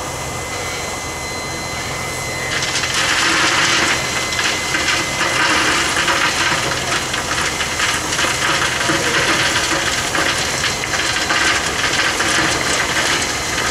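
Coal pouring from a bulk bag into a steam locomotive's bunker: a dense, gritty rattling that starts abruptly a few seconds in and carries on steadily. Under it runs the low hum of an engine.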